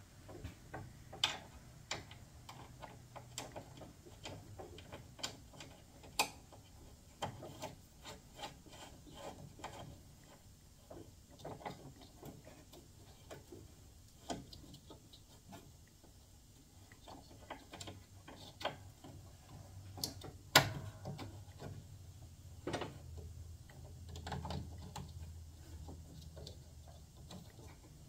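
Scattered small metallic clicks and taps of a replacement belt pulley and its fastener being handled and threaded on by hand under a John Deere LA135 lawn tractor, with one sharper click about twenty seconds in.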